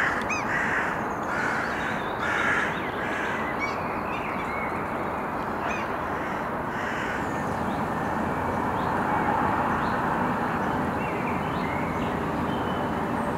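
Forest birds giving loud, harsh alarm calls, repeated about once a second in the first few seconds and fainter after that, over a steady rushing noise. Such loud calling can mean a fox is nearby.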